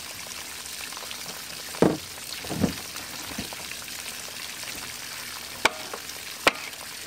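Top cowling of a Yamaha 90 hp four-stroke outboard being set down onto the engine and latched: two dull knocks about two seconds in, then two sharp clicks near the end as it is pressed down, over a steady hiss.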